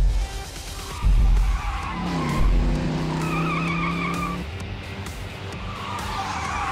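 Cartoon race-car sound effects: an engine revs up in pitch and holds, and the tyres squeal in a skid, over background music with deep bass thuds.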